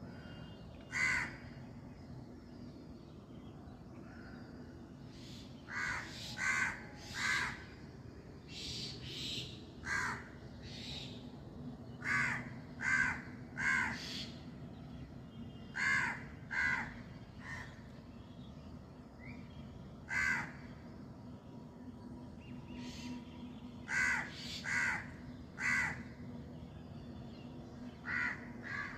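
Crows cawing in runs of two or three short caws, each run a few seconds apart, over a steady low background hum.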